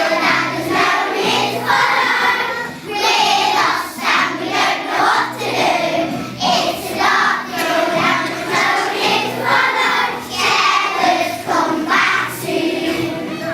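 A choir of voices singing a song in short phrases over steady low notes.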